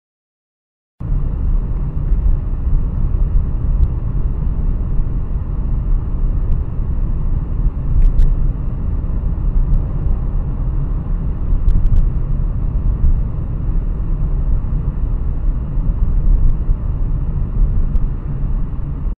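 Steady low rumble of a car driving at speed, tyre and engine noise heard from inside the car through a dashcam microphone, starting about a second in, with a few faint clicks.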